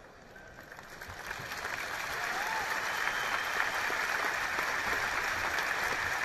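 Large arena crowd applauding. The applause swells over the first two seconds and then holds steady.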